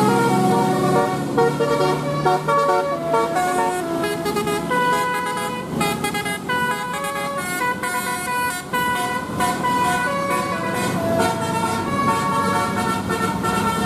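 Bus 'telolet' Basuri multi-tone musical horn playing a tune, its notes changing quickly from one pitch to the next.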